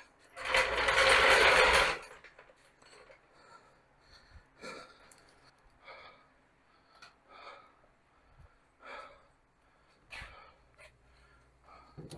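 Steel floor jack rolled across a concrete floor, a loud rumbling scrape about a second and a half long, followed by fainter scattered short knocks and scrapes.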